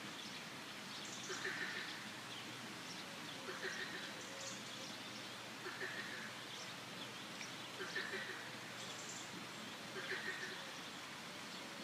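Forest ambience: frogs croaking in a regular rhythm, one call about every two seconds, with birds chirping over a steady background hiss.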